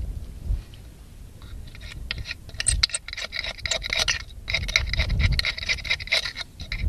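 A knife blade scraping and clicking against an oyster shell as the oyster meat is cut loose. Quick scrapes and clicks come in a dense run from about two and a half seconds in, nearly to the end.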